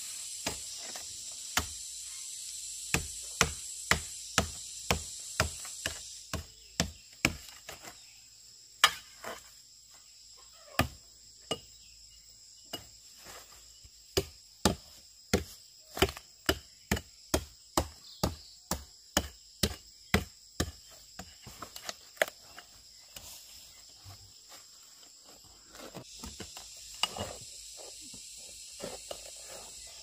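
Repeated chopping blows, about two a second, that stop a little over twenty seconds in. A steady high insect chorus carries on behind them.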